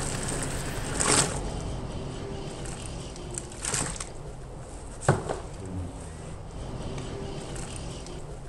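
Dry grey mortar powder poured from a small container into a plastic bucket of water, a steady hiss with louder rushes about one and four seconds in, and a sharp knock about five seconds in.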